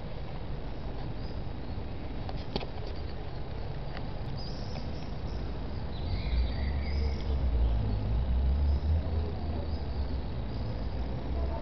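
Steady outdoor urban background noise from an open window high above a street, with a low rumble that grows louder for a few seconds in the middle and a few faint high chirps.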